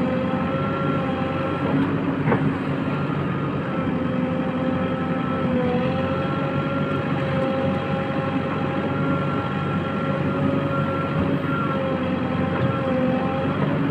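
JCB 3DX backhoe loader's diesel engine running steadily while working the loader bucket, with a steady whine that dips and recovers in pitch a few times. One sharp click about two seconds in.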